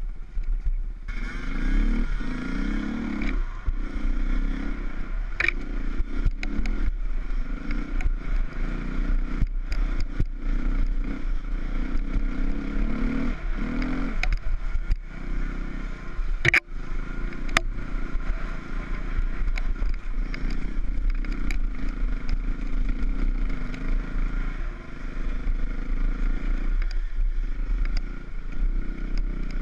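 Enduro motorcycle engine running as the bike rides a rough trail, its note swelling and easing with the throttle. Sharp knocks and clatter come from the bike over the bumps, with one hard knock about two-thirds of the way through.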